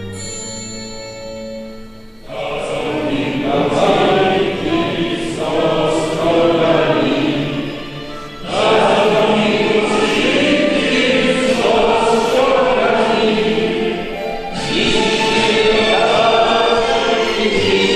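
Church congregation singing a hymn together in unison-style phrases of about six seconds, with short pauses for breath between lines. Held instrumental notes fade out in the first two seconds before the singing comes in.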